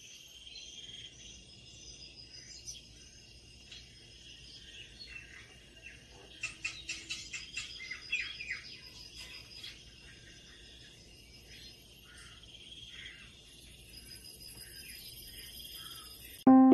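Small birds chirping and trilling, played through a television from a bird video for cats, with a run of rapid loud chirps about six to eight seconds in. The birdsong cuts off suddenly near the end.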